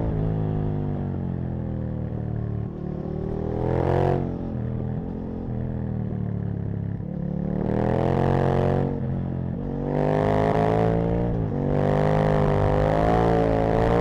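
Aprilia RSV Mille's 60-degree V-twin engine pulling under throttle, its note climbing and falling back about four times as the rider accelerates and eases off. The sharpest cut comes about four seconds in.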